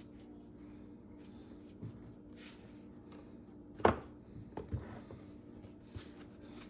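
Spice containers being handled on a kitchen counter: one sharp knock about four seconds in, then a few softer knocks, over a steady low hum.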